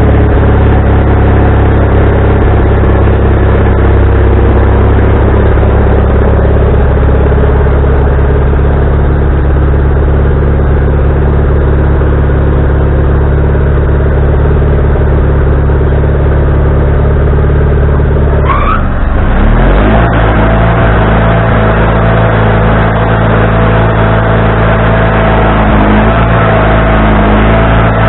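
Wood-Mizer LT40HD band sawmill running steadily at a loud level. About 19 seconds in the sound shifts, with a brief rising glide, and a steady higher whine holds after it.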